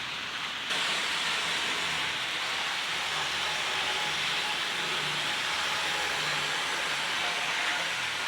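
HO scale model train running around its track: a steady whirring, hissing rumble of the small locomotive motor and wheels on rail, which gets louder about a second in and then holds even.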